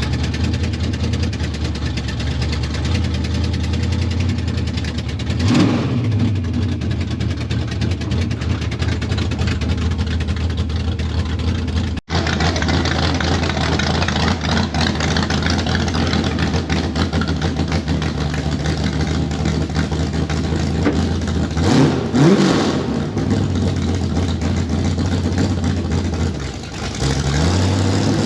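Engine of a Dodge mud truck running steadily under load, with a quick rev up and back down about five seconds in and again about twenty-two seconds in, then revs climbing at the end.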